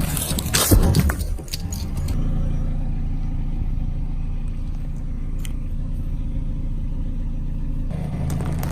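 Car engine running with a steady low rumble, with a sudden loud crackling crunch just under a second in as something is crushed beneath the tyre.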